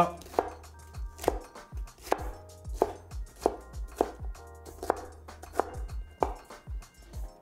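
Chinese cleaver chopping red bell pepper on a wooden cutting board: a steady run of single knocks, about one and a half a second, under soft background music.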